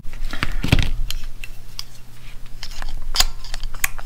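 Light metallic clicks and clinks of a motorcycle brake master cylinder and its small metal parts being handled and turned on a workbench. There is a cluster of clicks about half a second in and another about three seconds in.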